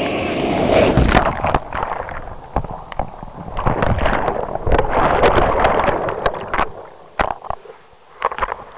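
A camera tumbled against a shell and pebble beach, probably in breaking surf: churning, rushing noise with many sharp knocks and scrapes, dying down about seven seconds in to scattered clicks.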